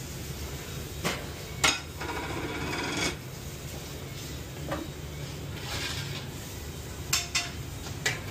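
Restaurant kitchen at work: metal pans, pots and utensils clanking and scraping on steel, with a rough scrape lasting over a second near the start and several sharp knocks. A steady low hum of the extraction hoods runs underneath.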